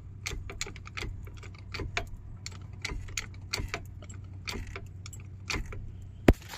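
Irregular metallic clicking and clinking of tools and suspension hardware while the front strut is worked loose, with one sharp loud metal knock near the end. A steady low hum runs underneath.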